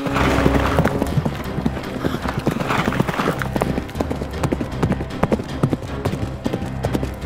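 Galloping horse hoofbeats, a fast run of clip-clop sound effects, over music.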